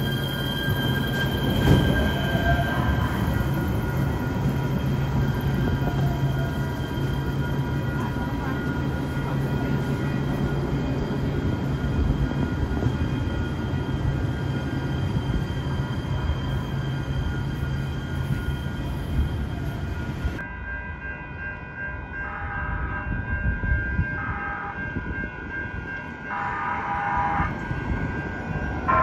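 Metro light rail train at a station platform, with a steady low motor hum under its running noise. After a cut, a railroad crossing bell rings in short repeated strokes as another light rail train approaches.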